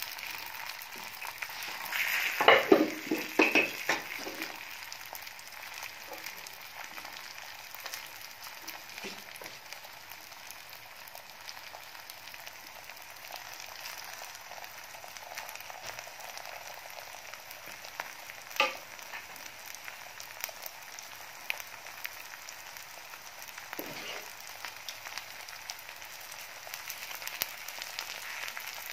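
Stuffed paratha frying in ghee on a hot tawa, a steady fine sizzle. A cluster of sharp knocks and clatter about two seconds in, and single clicks later on.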